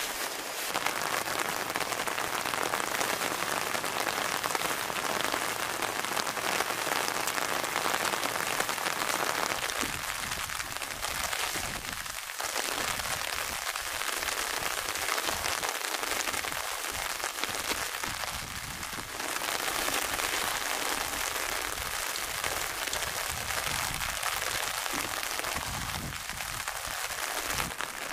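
Steady rain falling on tent fabric and wet grass.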